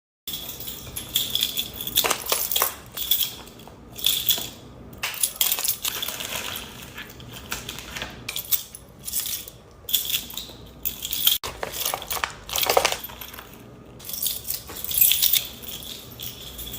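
Small metal objects jingling and clicking in irregular clusters, with a bright metallic ring.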